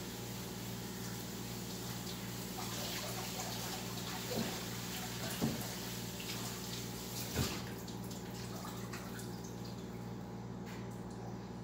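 Kitchen tap running into the sink while peeled potatoes are rinsed under it, with three short knocks of potatoes or container against the sink. The water cuts off near the end.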